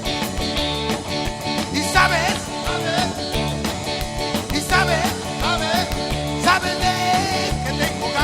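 Live rock band playing through a PA, with a steady beat and bass line and a lead line of wavering, sliding notes coming in about two seconds in.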